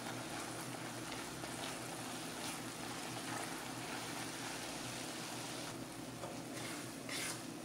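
Sugar syrup and ghee bubbling in a frying pan on the gas, with ground chana dal being stirred in by a silicone spatula, giving a steady sizzle with a few faint scrapes.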